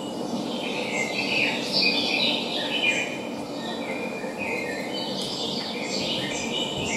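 Birdsong: several birds chirping and twittering in quick, overlapping calls over a steady low hiss, as a played-back forest soundscape.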